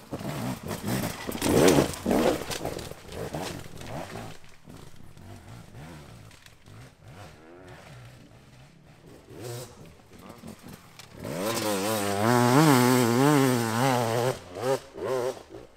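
Dirt bike engine revving in short, uneven blips, then from about eleven seconds in held at high revs, its pitch wavering quickly up and down as the rear wheel spins up a loose dirt climb.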